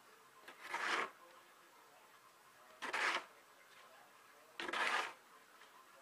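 Plastic snow shovel scraping along a paved walkway as it pushes snow, three short scrapes about two seconds apart.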